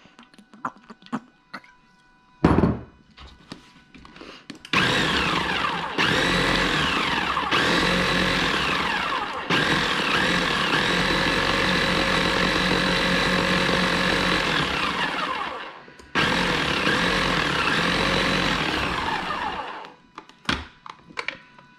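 Electric blender chopping a chimichurri of parsley, garlic and vinegar: a few clicks and a knock, then the motor runs from about five seconds in, in several pulses with a brief stop about two-thirds through, and winds down near the end.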